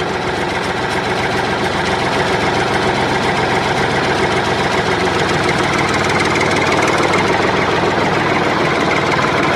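Engine running steadily with a fast, even knock.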